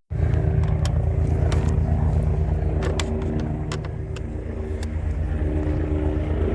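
An engine running steadily at idle, with a few sharp clicks over it.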